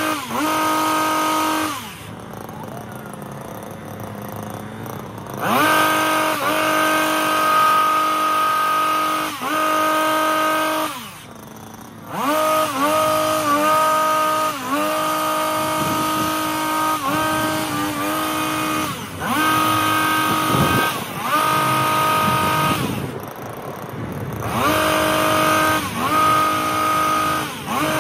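Stihl HS 82T two-stroke hedge trimmer engine revving in repeated bursts as the blades cut, falling back to idle three times for a second or a few seconds. The sound is sped up to double speed.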